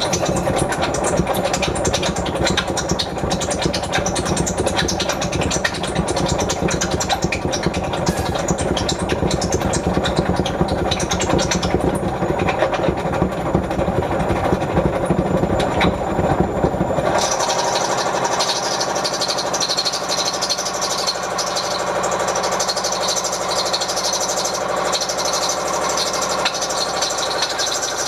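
Whirlpool washing machine running a cotton wash, with a steady mechanical rumble. About two thirds of the way through, the sound changes abruptly: the low rumble stops and a steadier, higher hiss takes over.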